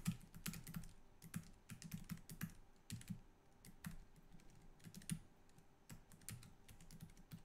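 Typing on a computer keyboard: a faint, irregular run of key clicks with brief pauses between bursts.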